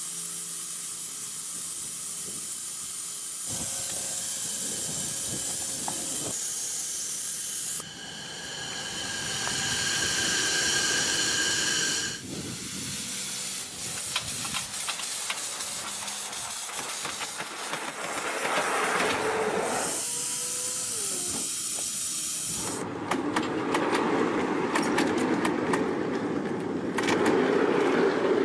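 Miniature live-steam locomotives venting steam with a steady hiss, across several cuts. A rapid clicking and rattling comes in about halfway through and again near the end.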